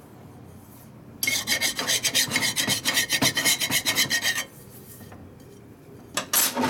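Hand file rasping across the top edge of a Harley-Davidson Knucklehead's cast-iron cylinder bore in about three seconds of quick back-and-forth strokes, followed by a couple of light knocks near the end.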